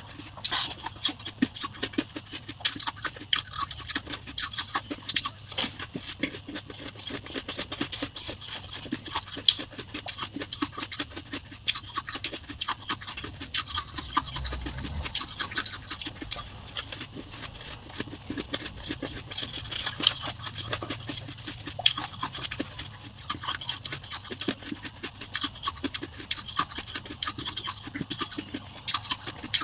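Soft white frost ice being chewed, a dense, unbroken crackling crunch, with a metal spoon scooping through the ice.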